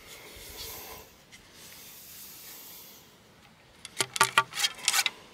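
A wooden ramrod rubbing against the steel muzzle of a muzzleloading shotgun barrel as over-powder cards are worked into it. About four seconds in comes a quick run of sharp taps and clicks, some with a short ring, as the rod knocks against the barrel.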